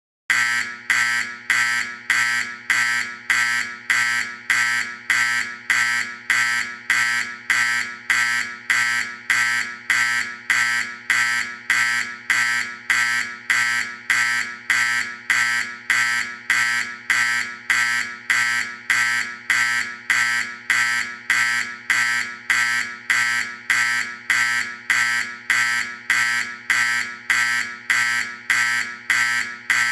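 AC fire alarm horn on a Simplex 4050 fire alarm system sounding march-time code at 90 beats per minute. It gives an even buzzy blast about one and a half times a second and starts just after the beginning.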